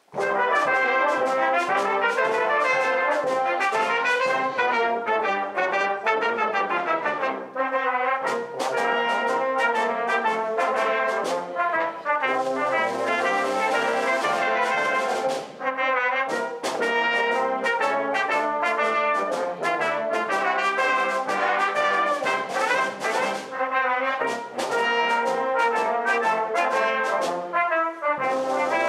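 Full brass band of cornets, tenor horns, euphoniums, trombones and tubas playing a march, starting at once at full volume, with sharp percussive strokes and short breaks between phrases.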